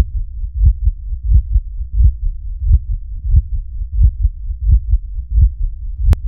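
Heartbeat sound on the soundtrack: deep double thumps in a steady lub-dub rhythm, about 88 beats a minute. A single sharp click comes near the end.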